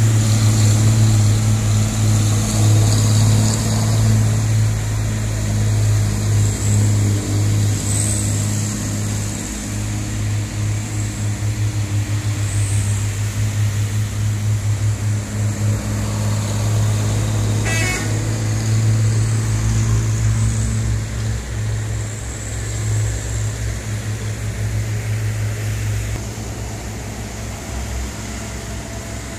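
Diesel engines of heavily loaded sugarcane trucks pulling slowly uphill: a steady low drone that fades gradually as the trucks move away. A single sharp click past the middle.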